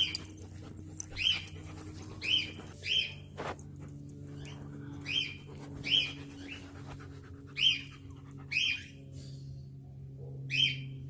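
An animal's short, high-pitched chirping calls, about one a second at uneven spacing, over a faint low steady hum.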